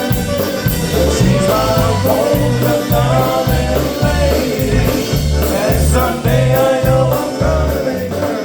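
Live band playing an upbeat song, with a sung and played melody over bass notes pulsing about twice a second.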